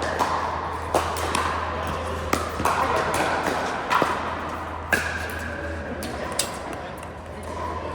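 Pickleball paddles striking a plastic ball during play: sharp, irregular pops about a second or so apart, over a background hubbub.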